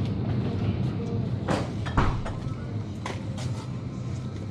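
Supermarket background: a steady low hum, with a couple of brief noises and faint voices about one and a half and three seconds in.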